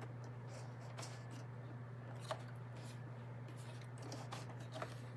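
Faint clicks and rubbing as fingers press and handle the plastic casing and controls of an Etenwolf Vortex S6 cordless tire inflator, over a steady low hum.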